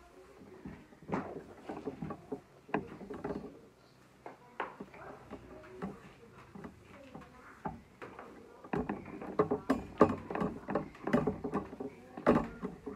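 Broom sweeping a tiled floor: irregular scraping strokes and light knocks, busier and louder in the last few seconds.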